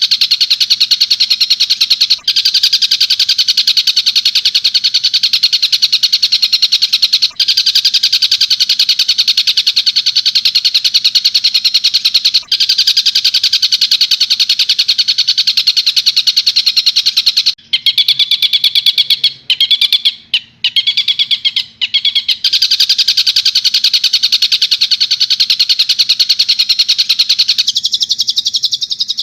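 Bird calls played as a masteran track of tengkek buto interspersed with cendet (long-tailed shrike) song: a loud, fast, unbroken chattering trill. A few seconds past the middle it breaks into shorter, clearer, more tonal notes, then the chatter resumes.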